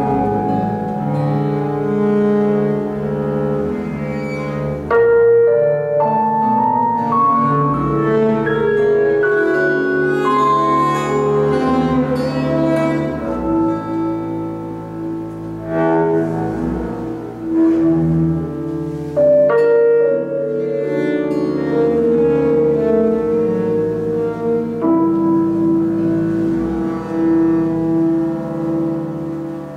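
Live chamber ensemble playing slow music: long bowed cello notes that change pitch every second or two, with piano chords struck a few times.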